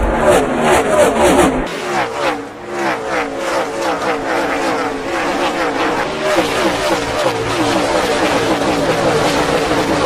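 NASCAR stock cars' V8 engines running at speed, several engine notes rising and falling over one another. About two seconds in the sound changes abruptly and loses its deep rumble.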